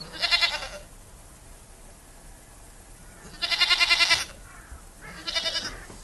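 Sheep bleating three times: a short bleat at the start, a longer, louder one about three and a half seconds in, and a shorter one near the end, each with a rapid quaver.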